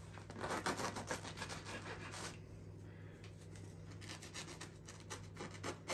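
Knife sawing through the crust of a crusty bread roll, a quick run of rasping crunches for about two seconds, then a few lighter scrapes near the end.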